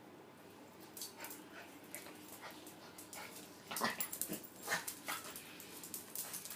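Papipoo dog (papillon-poodle cross) at play, making a run of short sharp noises and scrabbling on a wet tiled floor, loudest about four and five seconds in.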